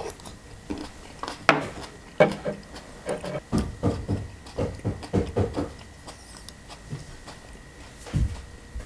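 Close-miked eating of cold kimchi noodle soup: two sharp clacks of utensils against the bowl, then a quick run of wet mouth sounds as the noodles are eaten.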